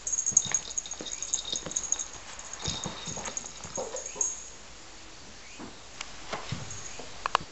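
A cat's small, thin, high-pitched vocal sounds, broken up by short clicks, starting suddenly; a couple of sharper short sounds come near the end.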